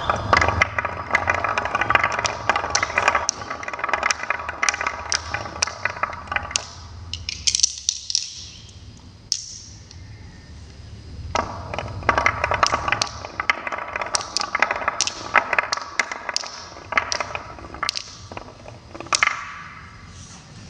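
Marbles rolling and clattering down a marble run track, a dense rapid rattle of clicks that eases to a few sparse high clicks in the middle, then picks up again before fading near the end.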